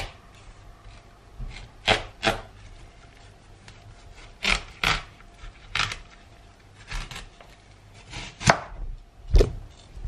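Large kitchen knife cutting through a whole watermelon's rind on a wooden chopping board: irregular crunching cracks every second or so. The loudest two come near the end, the last with a dull thud as the melon splits in half.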